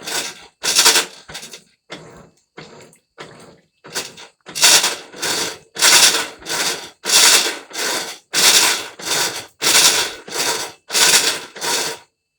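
Colormaq 11 kg top-loading washing machine agitating in the wash cycle, each back-and-forth stroke giving a loud scraping, rattling noise, about one and a half strokes a second. The strokes are weaker for a couple of seconds early on, then stop abruptly near the end. The noise is the abnormal wash-cycle noise the machine is being shown for.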